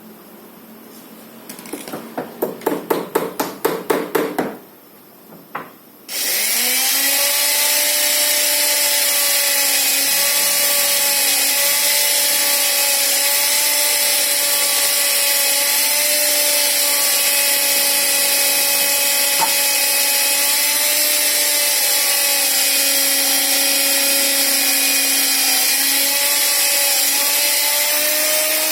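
A quick run of about a dozen knocks, then about six seconds in an electric sliding circular saw's motor (Wipro 1800 W) starts, spins up fast and runs steadily with an even whine.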